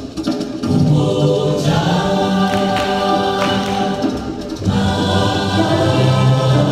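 Music with a choir singing held chords; the voices break off briefly about four and a half seconds in and start a new chord.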